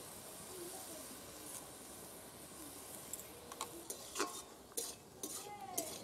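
Cabbage sizzling in a steel kadai over a wood fire. From about three seconds in, a metal spatula stirs and scrapes the pan, with several sharp clinks against the steel.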